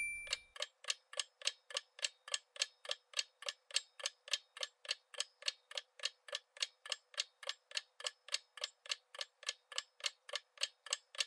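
Countdown-timer sound effect: a clock ticking steadily at about four ticks a second, marking the time left to answer.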